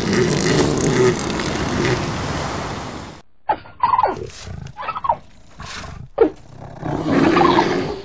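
A low rumbling animal voice over a steady hiss, then, after an abrupt cut about three seconds in, a series of short animal growls and roars, each falling in pitch, with a longer rumbling growl near the end.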